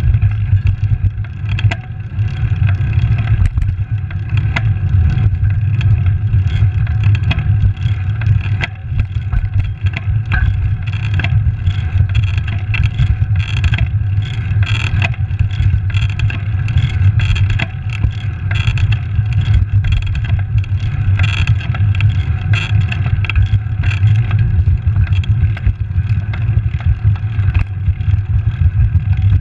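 Wind rushing over the microphone of a handlebar-mounted camera on a moving road bicycle, a loud, steady low rumble, with tyre noise on asphalt and frequent small knocks and rattles from bumps in the road.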